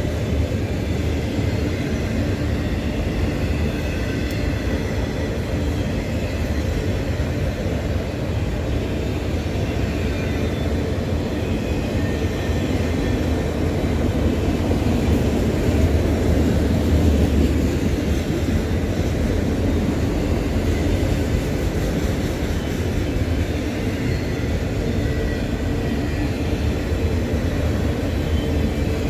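Autorack freight train rolling past, a steady loud rumble of wheels on rail that swells slightly midway.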